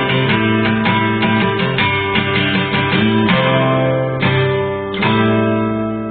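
Background music: acoustic guitar picking quick notes, then slower strummed chords, the last ringing out and fading near the end.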